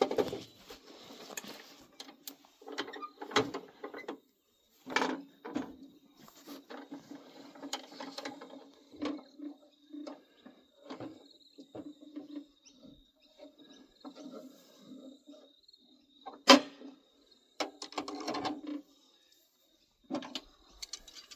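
Irregular metallic clicks, knocks and rattles of a bench vise being moved and clamped onto a stainless-steel solar pump, with one sharp loud clank about sixteen seconds in.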